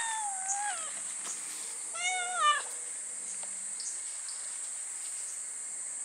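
A domestic cat meows twice: a drawn-out meow at the start and a shorter, louder one about two seconds in. Behind it runs the steady high drone of cicadas.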